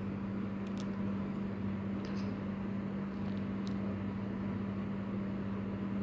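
Steady low electrical hum, like a fan or appliance running, with a few faint light ticks.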